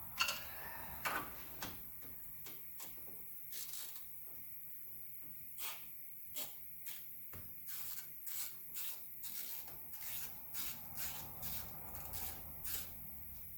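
Socket wrench on 7 mm bolts holding a car's lower dash panel: short, sharp clicks and rattles, sparse at first, then more regular at about two or three a second through the second half as the bolts are backed out.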